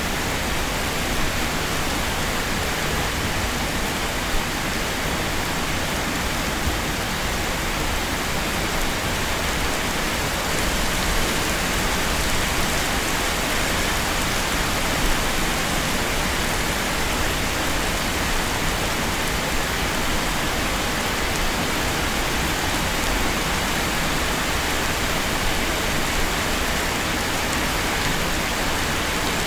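Rain falling steadily in a dense, even hiss.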